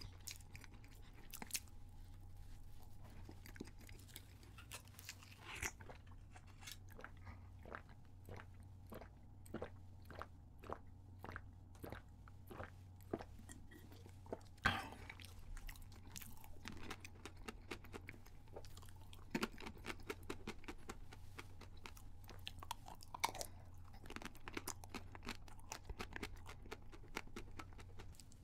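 Close-miked chewing of a soft chocolate muffin, with many small wet mouth clicks and smacks at an irregular pace. About halfway through comes a louder sharp sound as he drinks from a small bottle of chocolate milk, then the chewing goes on.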